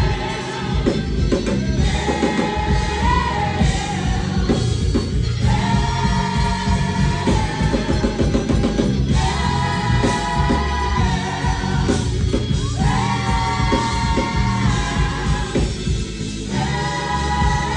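Gospel praise team singing together over a live band, holding long notes in phrases of about two seconds with short breaks between them, with drums and bass underneath.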